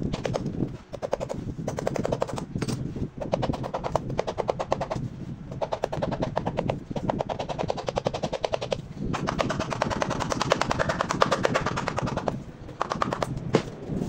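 A hand tool scraped rapidly back and forth over the leather on the bottom of a lasted shoe, a fast rattling rasp that comes in about half a dozen runs with short breaks between them.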